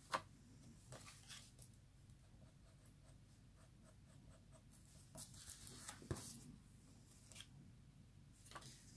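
Pencil eraser rubbing faintly along the edge of a hot-foiled die-cut paper panel in short, scratchy strokes, taking off excess foil. A single sharp click comes just after the start.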